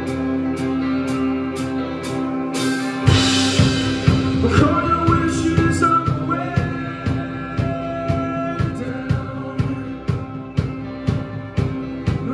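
Live rock band playing: electric guitars ring over an even ticking beat, then the full drum kit comes in with a loud crash about three seconds in, and a man's voice starts singing a second or so later.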